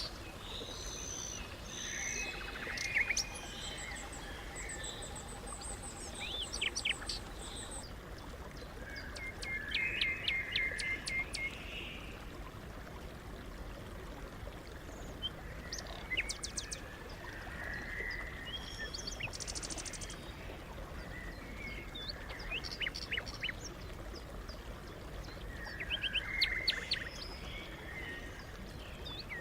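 Several songbirds singing and calling, with sharp chirps, high thin trills and quick runs of repeated notes overlapping, over a faint steady low rumble.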